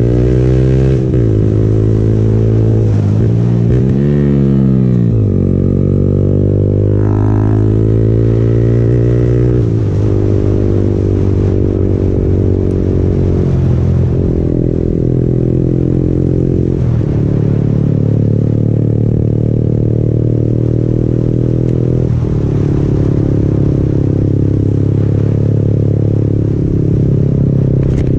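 Yamaha MT-15's single-cylinder engine through an Akrapovic aftermarket exhaust, ridden on the road. The engine note falls and rises as the rider works the throttle and shifts up through the gears, then runs steadily at cruising speed with a few small drops in pitch at later shifts.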